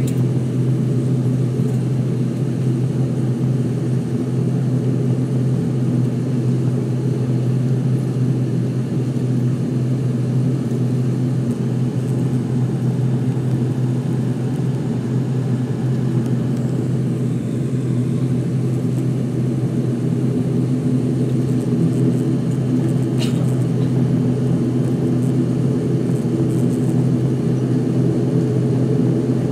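ATR 72-500's twin turboprop engines and propellers running steadily, a constant low drone heard inside the passenger cabin while taxiing. One short click sounds about three-quarters of the way through.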